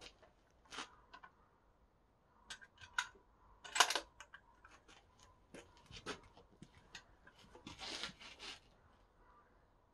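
Scattered clicks and knocks of a CZ 527 bolt-action rifle being handled, the loudest a sharp click about four seconds in. A rustle follows around eight seconds as the rifle is brought to the shoulder.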